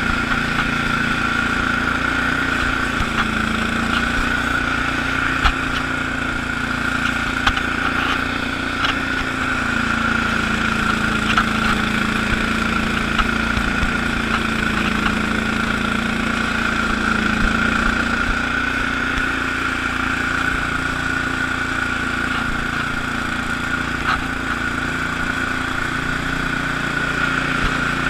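Allis-Chalmers HB-112 garden tractor's engine running steadily while it drives a 48-inch Sweepster rotary broom sweeping snow, with a steady high whine over the engine note.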